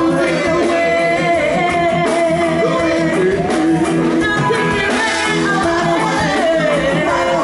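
Live reggae music: several singers singing together over a backing band.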